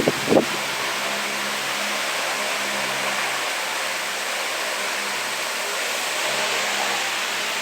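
Tron AT 60 wall fan running steadily: an even rush of air over a faint low motor hum. A brief loud bump comes right at the start.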